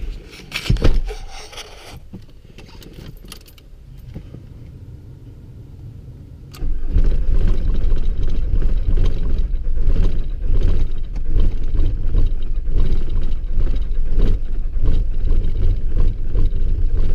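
A few clunks and rattles in the first two seconds. Then, about six and a half seconds in, a Volkswagen TDI diesel engine cranks and fires into a loud, uneven, pulsing run on its first start after the intake manifold and EGR cooler were cleaned and refitted.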